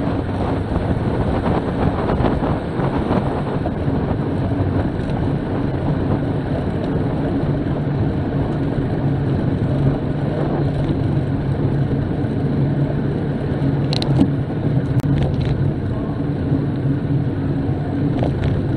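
Wind rushing over a bike-mounted camera's microphone with the hum of road-bike tyres rolling on tarmac, as the rider coasts and slows. A few sharp clicks come about three-quarters of the way through.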